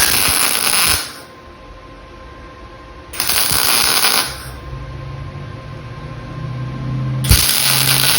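Arc welding on steel in three short crackling bursts, each about a second long: short welds putting small steel ears onto a steel plate. A steady low hum runs underneath from about halfway through.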